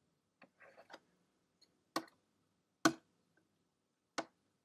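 A few sharp, separate clicks from drawing input on a digital whiteboard while a letter is written: two faint ones in the first second, then three louder ones roughly a second apart.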